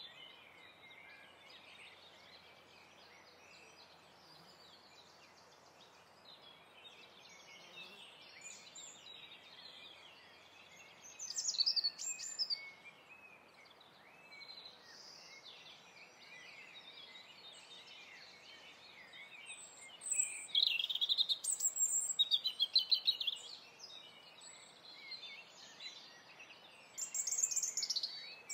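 Birds chirping and singing over a steady background hiss, with louder runs of song about a third of the way in, past two-thirds, and again near the end.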